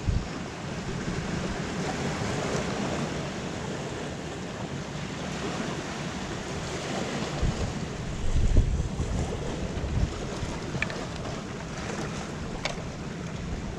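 Sea surf washing steadily on a rocky shore, with wind buffeting the microphone in gusts, heaviest about halfway through. A couple of brief clicks near the end.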